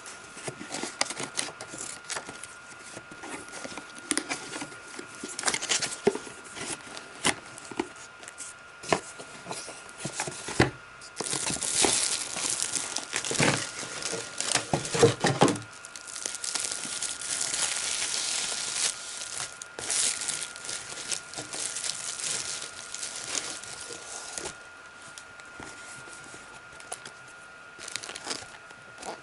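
Plastic and paper packaging handled by hand: scattered rustles and taps at first, then a long stretch of loud plastic crinkling through the middle as the padded wrapping is pulled away, with lighter rustling near the end.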